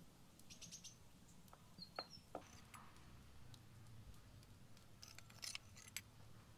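Near silence broken by faint small clinks of a metal spoon against small ceramic jars as seasoning is scooped out, with a faint bird chirp about two seconds in.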